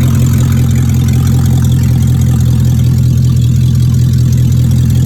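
BMW 745i V8 idling steadily with a loud exhaust note. The catalytic converters have been removed, so the exhaust runs without them.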